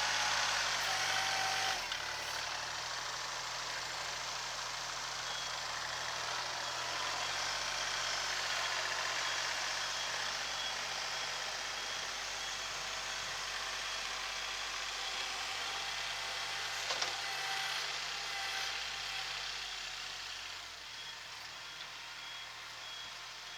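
Kubota SL28H tractor's diesel engine running under snow-clearing work, with its reversing buzzer beeping in an even repeating pattern for most of the time. The engine sound drops somewhat near the end.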